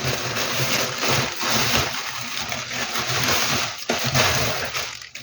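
Plastic packaging rustling and crinkling as it is handled, in an irregular, continuous run that fades away near the end.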